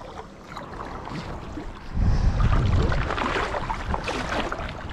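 Wind buffeting the microphone outdoors: a low rumbling gust comes in about two seconds in, over a steady rustling, crackling hiss.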